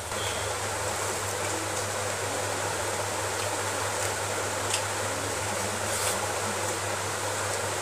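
Steady background hiss with a low hum, with a few faint clicks of food being mixed and eaten by hand from a metal plate.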